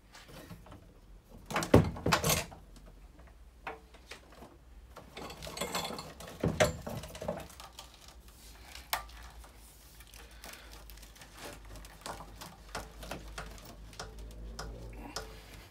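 Clicks, knocks and clatters of a rubber hose being worked loose from the heat exchanger fitting of a drained Viessmann Vitodens 100 gas boiler. The loudest knocks come about two seconds in and again around six to seven seconds, with lighter clicks after.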